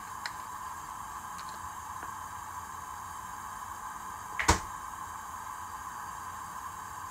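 Kitchenware knocking once, sharply, about four and a half seconds in, over a steady hiss with a few faint clicks, as gochujang is added to the dish being cooked.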